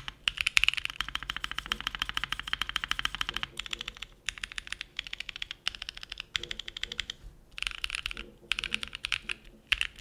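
Fast typing on a custom mechanical keyboard with Gazzew Boba U4T tactile switches, lubed and filmed, under Drop DCX keycaps. The clicks run densely at first, then come in shorter runs with brief pauses from about three and a half seconds in.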